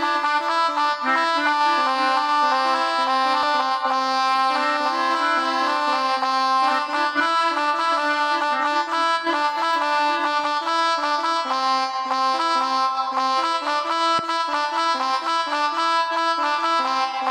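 Melodica (pianika) app on a phone playing a telolet bus-horn style tune: reedy sustained notes, several at once, changing in a quick unbroken run.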